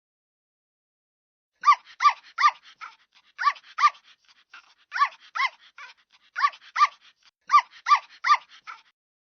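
Puppy yipping: short, high, arched yips in quick runs of two to four, starting about a second and a half in.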